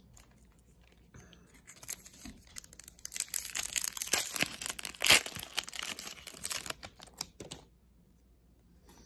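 Panini Mosaic football card pack wrapper being torn open and crinkled by hand: a few seconds of dense tearing and crackling, loudest about halfway through, stopping a little before the end.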